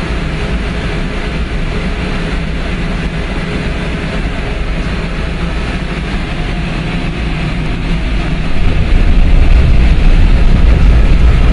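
Boiler-room machinery running with a steady low rumble and hum, growing markedly louder about eight and a half seconds in.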